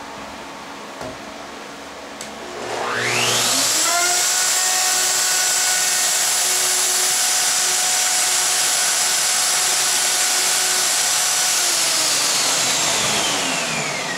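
Festool OF2200 router motor spinning up with a rising whine, running at a steady high-pitched whine for about nine seconds, then switched off and winding down with a falling whine near the end. A quieter steady hum runs before it starts.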